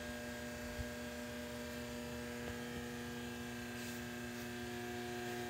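A steady electrical hum made of several steady tones at once, noisy enough for the speaker to remark on it.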